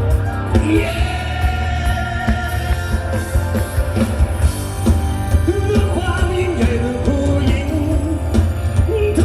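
Loud amplified live band music with a singer over heavy bass and drums.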